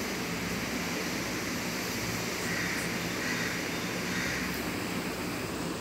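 Steady rushing background noise with a low, even hum underneath, unchanging throughout; no distinct handling sounds stand out.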